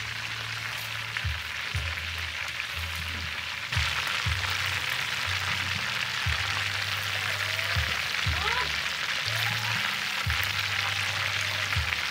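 Chicken feet deep-frying in a large wok of hot oil: steady bubbling and sizzling, which grows louder about four seconds in.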